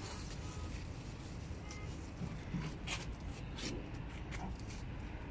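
Cucumber plant leaves rustling and a few short snaps and rustles as cucumbers are picked off the vine by hand, over a steady low background rumble.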